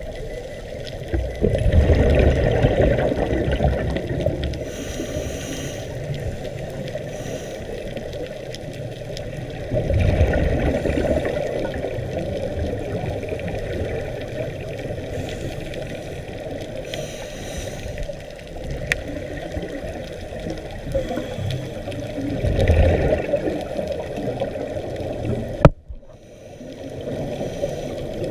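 Scuba divers' regulator exhaust bubbles gurgling and rumbling underwater, muffled, swelling three times as divers breathe out. A single sharp knock comes near the end.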